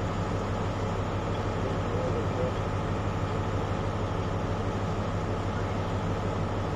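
InterCity 125 (HST) diesel power car running steadily while the train stands at the platform, a constant low engine hum.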